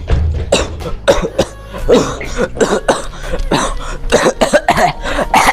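A person coughing in a rapid, continuous fit of harsh, hoarse coughs, many short coughs in quick succession.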